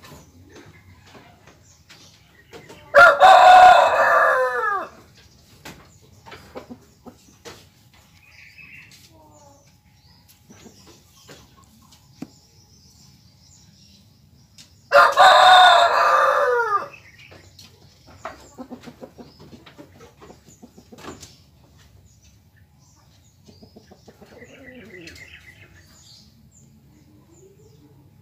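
A rooster crowing twice, each crow about two seconds long and about twelve seconds apart. Faint clicks can be heard between the crows.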